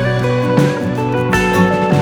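Background music led by guitar, with plucked and strummed notes.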